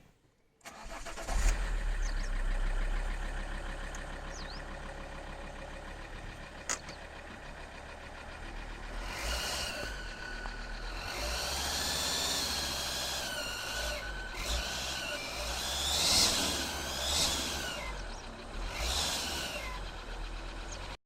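Alfa Romeo 159 2.4 JTDm five-cylinder diesel starting about a second in and running at idle, with a high-pitched squeak that wavers in pitch. The squeak comes in repeated swells through the second half.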